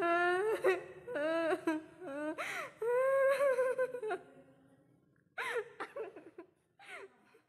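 A girl crying hard: long, wavering wails for about the first four seconds, then a few shorter sobs that trail off.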